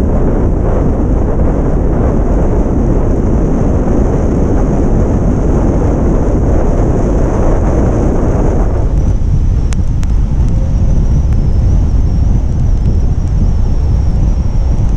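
Wind buffeting a roof-mounted camera's microphone on a moving vehicle, a steady loud rumble with road noise underneath. The rushing eases somewhat about halfway through, leaving mostly low rumble.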